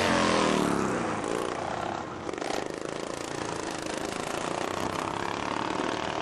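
A racing riding lawnmower's engine running hard and dropping in pitch as it passes and fades over the first two seconds, leaving a fainter engine sound in the background.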